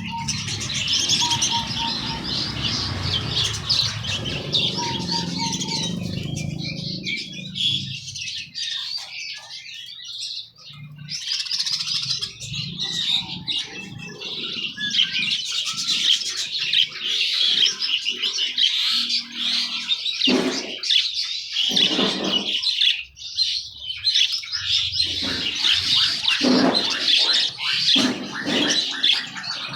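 Many caged songbirds chirping and singing at once, a dense, continuous twittering chatter, with a low rumble underneath during the first several seconds.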